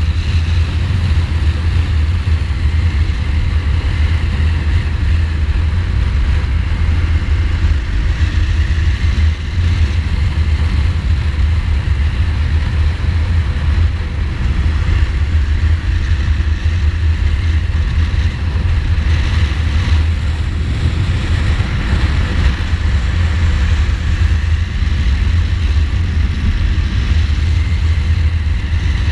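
2015 Ducati Multistrada's twin-cylinder engine running at road speed, with steady low wind rumble on the bike-mounted camera's microphone throughout.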